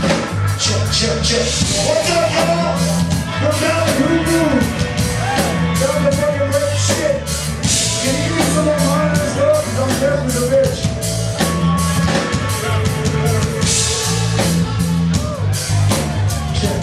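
A live rock band playing, with a drum kit keeping a steady beat under a bass line.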